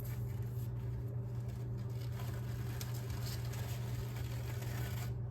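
Steady low electrical hum, like a room fan or appliance, with faint light rustling of a paper napkin being peeled apart into its separate plies.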